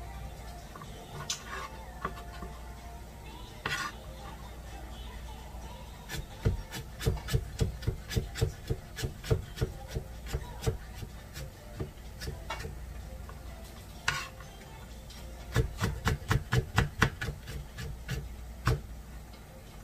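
A kitchen knife chopping a vegetable on a plastic cutting board: a run of quick, even chops in the middle and another near the end, with a few single knocks between, over a steady low hum.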